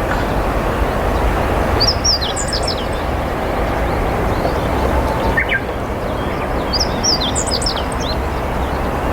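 Meadow bunting singing: two short, quick phrases of high notes about five seconds apart, over steady low background noise.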